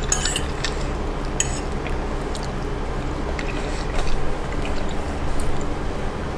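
Eating sounds: a fork clinks against a plate twice in the first second and a half, with small wet mouth and chewing noises after, over a steady low hum.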